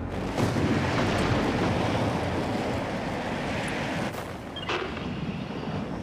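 Storm wind sound effect, a steady rushing noise, broken by two short sharp crackles about four and five seconds in.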